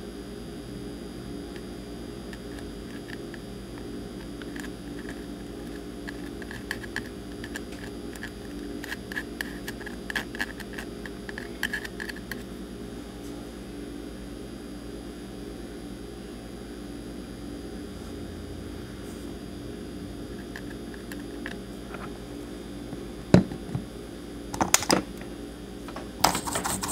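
Steady electrical hum at a soldering bench, with scattered light ticks and taps of hand tools working on a circuit board, and a few louder sharp clicks near the end.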